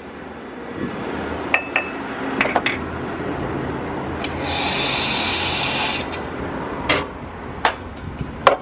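Coffee being made in a mug: scraping and several sharp clicks of spoon and crockery, with a steady hiss lasting about a second and a half midway.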